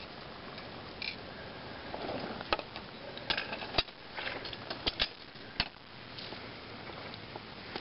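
Loose candled ice needles clinking: a scattered run of sharp clicks and light tinkles, bunched in the middle, over a steady hiss.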